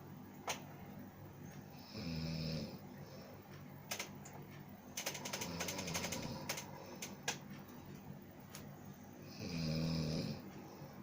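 A person snoring loud in their sleep: two deep, rasping snores about seven seconds apart, with a run of small sharp clicks between them.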